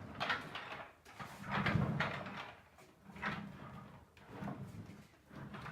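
A few soft sliding and scraping handling noises, one every second or so, as gear is moved about in the shelf cart.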